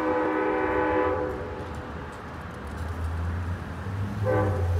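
A train's air horn sounds a chord of several tones, one blast of about a second, then a shorter blast near the end. Underneath, the low rumble of the approaching locomotive builds from about halfway through.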